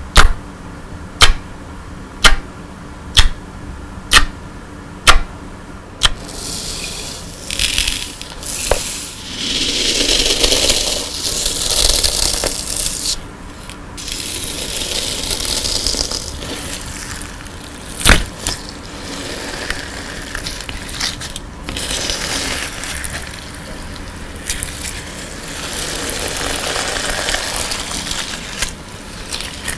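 Colour-sand slime being poked, squashed and stretched by hand. It starts with sharp clicks about once a second for several seconds, then turns to grainy crackling and squishing, with one louder click about midway.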